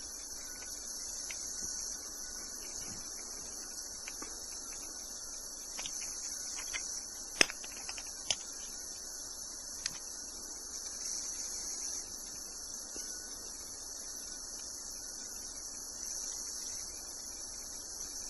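Steady high-pitched chirring of crickets, with a few sharp clicks, the loudest about seven seconds in.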